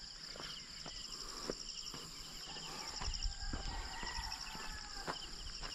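Steady chorus of insects (crickets or cicadas), a high pulsing trill, with footsteps about twice a second from someone walking on a rough road.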